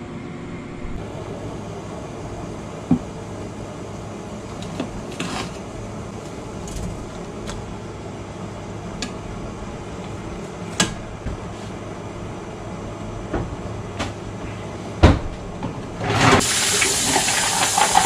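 Scattered clinks and knocks of a metal spoon and pot over a low steady hum, then a kitchen tap running into a stainless steel sink near the end.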